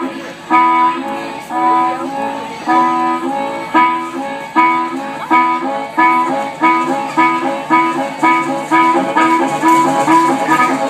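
Harmonica played in cupped hands into a microphone, sounding repeated chords in a chugging rhythm that steadily speeds up, like a freight train getting under way.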